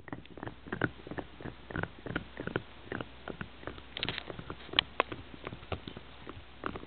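Boston terrier gnawing a chew bone: irregular wet clicks and crunches of teeth on the bone, several a second.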